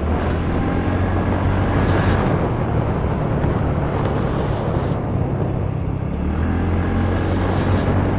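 Scooter engine running steadily at low road speed, a low drone with road and air noise over it; it eases off for a moment about five seconds in, then picks up again.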